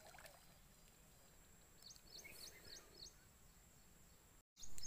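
Faint splashing and sloshing of water as a big hooked catfish thrashes in the shallows at the bank. A small bird chirps a quick run of about five notes about two seconds in. Near the end the sound cuts out for an instant and comes back louder.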